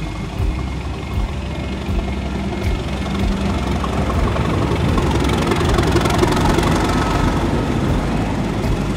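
Railway locomotive running, with a steady low engine rumble that swells louder around the middle and eases off near the end.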